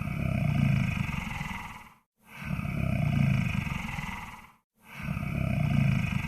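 Monster snore sound effect: deep, fluttering, growl-like breaths, one about every two and a half seconds, each swelling and then fading, with a brief silence between them.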